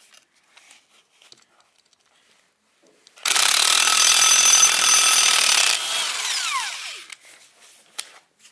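Milwaukee M18 half-inch cordless impact wrench hammering on a rusted bolt for about two and a half seconds. It then runs on more quietly and winds down with a falling whine. A light click comes near the end.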